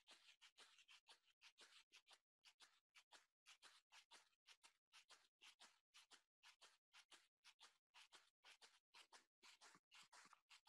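Near silence: faint room hiss from a webcam microphone, cutting in and out two or three times a second.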